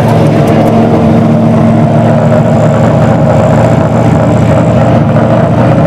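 Lotus LT5 5.7-litre 32-valve V8 of an Opel Kadett C hillclimb car idling loudly and steadily.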